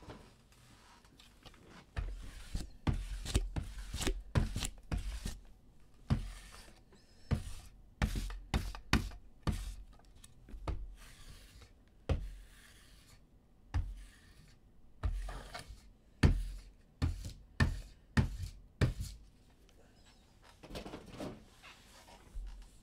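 Hands handling objects on a tabletop: a run of irregular knocks, thumps and rubbing with short pauses between, starting about two seconds in and dying down near the end.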